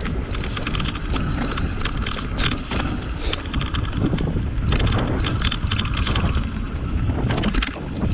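Rigid 29+ mountain bike rolling over rough dirt singletrack, its tyres and frame clattering with many small knocks and rattles over bumps. Wind buffets the microphone throughout.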